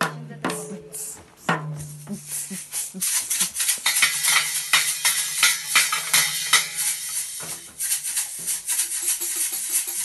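A small child banging on a toy drum kit with sticks: fast, irregular hits on the drums and a small cymbal, the cymbal crashing most densely through the middle. A low steady hum sits under the first few seconds.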